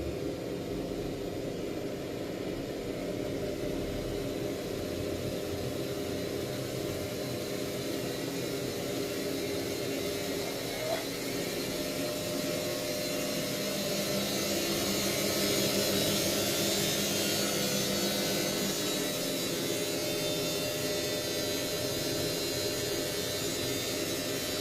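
Vision front-load washing machine running with a steady electric hum, a little louder in the middle.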